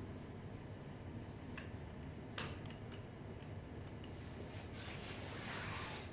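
Small hand-work sounds of tools and scooter parts being handled: a faint click, then a sharp metallic click about two and a half seconds in, and a short rubbing scrape near the end.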